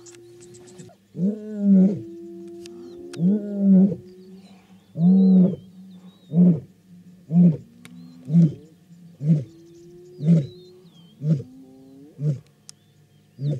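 African lioness roaring: a bout that opens with three long, loud roars, then tails off into a run of shorter grunting calls about one a second that grow weaker.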